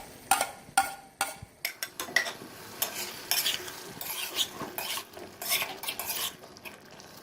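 A spoon stirring and scraping chicken in a karahi, with irregular clinks against the pan over the sizzle of the meat frying in oil and butter.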